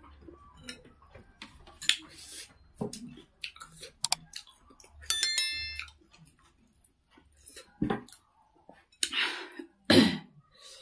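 Close-up eating sounds: slurping and chewing hot, spicy soup with hand-made kaudi noodles, with scattered clicks of a spoon on the bowl and breathy slurps. A short electronic chime rings about five seconds in, the bell of a subscribe animation.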